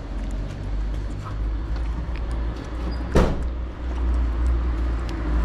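A cat eating wet food close to the microphone, chewing and lapping with faint small clicks over a steady low rumble. A short loud thump comes about three seconds in.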